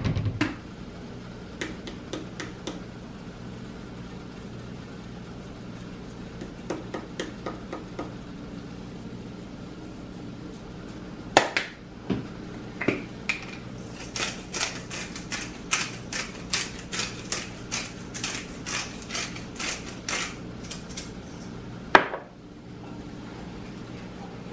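Cooking utensils tapping and clinking against a skillet of vegetables while it is seasoned and stirred, with a fast run of small clicks in the second half. There are two sharper knocks, one about halfway through and one near the end, over a faint steady hum.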